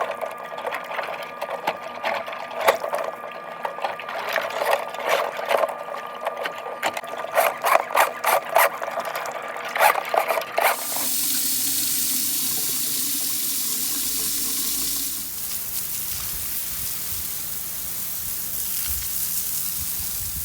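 Electric drain-cleaning machine running a cable through a backed-up 2-inch laundry and kitchen drain line, with a dense rattling and clicking. About eleven seconds in the machine stops and water runs steadily with a hiss.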